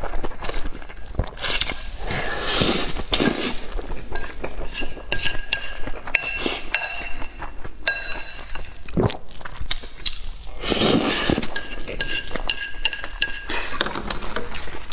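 Close-miked eating of wide chili-oil noodles (youpo mian): chopsticks clinking and scraping against a stoneware bowl, with two longer stretches of noodles being slurped, about two seconds in and again about ten seconds in.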